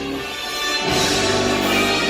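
Music with held, sustained notes, swelling fuller about a second in.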